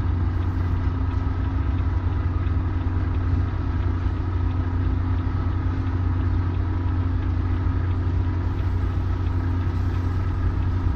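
Truck's diesel engine idling steadily, a constant low hum heard from inside the cab.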